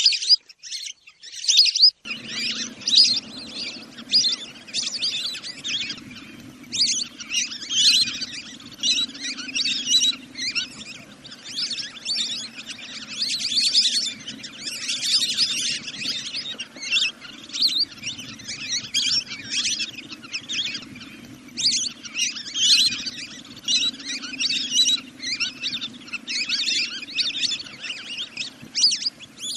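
Recorded bird calls played back as a decoy lure: rapid high chirping calls repeated over and over without a break. A low steady hum comes in about two seconds in.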